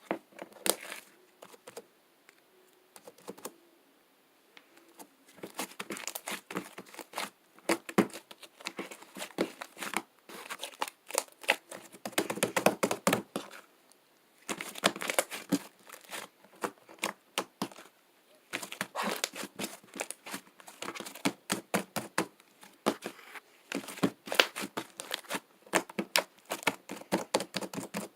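Sticky slime being squeezed and pulled by hand, giving rapid clicking, crackling pops in bursts of a few seconds with short pauses between.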